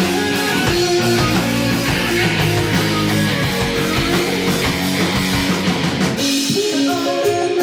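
Rock band playing live: guitar, bass and drum kit in an instrumental passage. About six seconds in the low end drops away and the music thins to lighter guitar notes.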